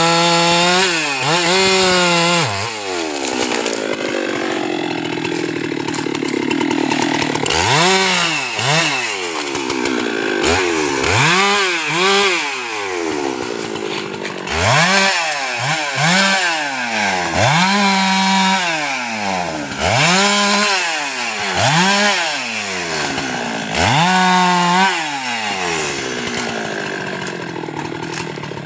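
Husqvarna 390XP two-stroke chainsaw held at high revs at first, then dropping off and being revved up and down about ten times in quick succession before settling to a lower running speed near the end.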